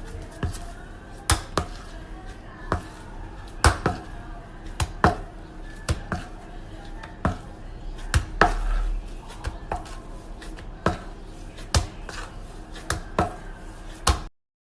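Kitchen handling sounds: irregular sharp knocks and clicks, a couple of dozen of them, over a steady low hum.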